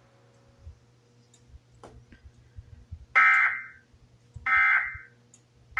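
Emergency Alert System end-of-message (EOM) data bursts: short, harsh, buzzy digital squawks, two of them about 1.3 s apart in the second half, with a third starting at the very end. They signal that the alert message is over.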